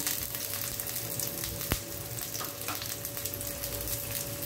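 Capsicum rings sizzling in hot oil on an iron pan, a steady hiss with fine crackles. A single sharp click comes about a second and a half in.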